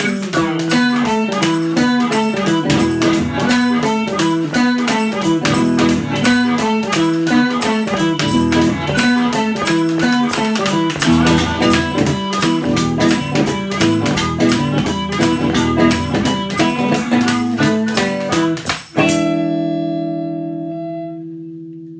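Chicago-style blues band playing an instrumental passage: a repeating boogie guitar figure over a steady washboard beat. About nineteen seconds in the band stops together on a final chord, which rings on and fades away.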